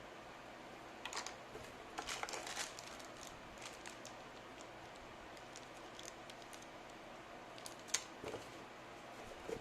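Keystrokes on a Rakk Lam-ang Pro TKL mechanical keyboard with brown switches, pressed irregularly: a few clicks about a second in, a short flurry about two seconds in, faint scattered taps after that, and a sharper click about eight seconds in.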